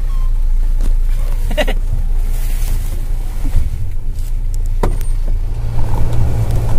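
A vehicle driving on a rough dirt track: a steady low engine and road rumble, with a knock about 2 s in and another about 5 s in.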